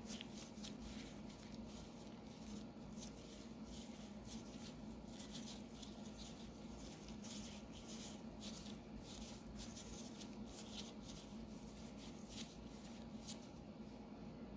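Faint, irregular scratching and light tapping as fingers press pastry dough into small metal tart molds, over a steady low hum.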